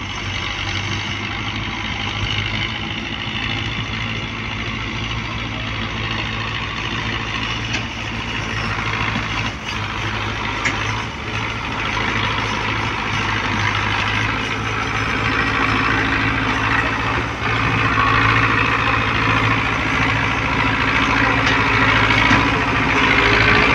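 Diesel tractor engine running steadily under load as it pulls a heavily loaded sugarcane trolley, growing louder over the second half as it draws closer.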